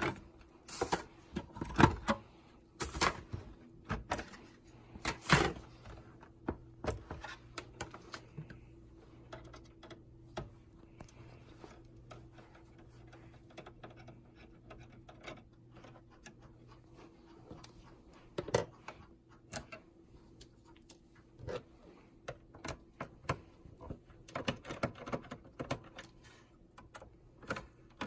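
Irregular clicks, taps and knocks of hard plastic and metal parts being handled while a POS terminal is worked on by hand. The knocks are busiest at the start, thin out in the middle, and pick up again about two-thirds of the way through.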